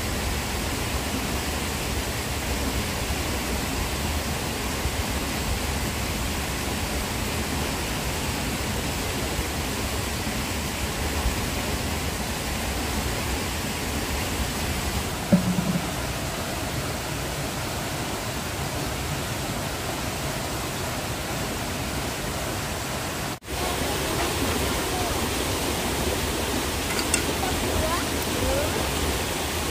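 Steady rushing noise with no clear rhythm, broken by a brief dropout about three-quarters of the way through.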